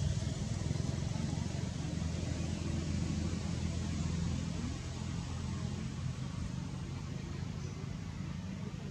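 Steady low engine rumble, like a motor vehicle running, over a faint even hiss; it eases off slightly as it goes.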